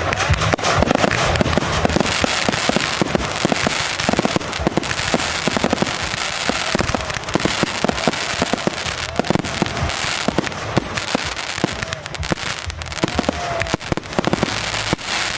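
Aerial fireworks going off in quick succession: a dense barrage of bangs and crackling from bursting shells.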